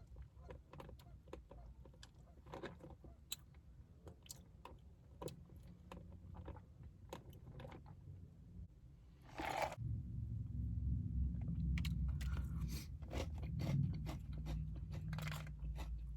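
Close-up chewing and crunching of a crispy fried chicken sandwich, with many small wet clicks of the mouth. About halfway through, a louder low rumble joins in and carries on.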